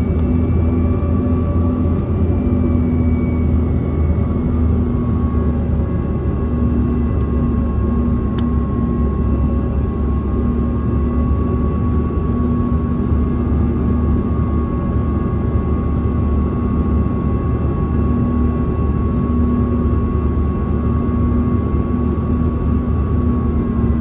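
Cabin noise of a CRJ-200 regional jet on approach, heard from a seat beside its rear-mounted CF34 turbofan engine. A steady deep rumble runs with a constant engine whine on top, which eases slightly near the end.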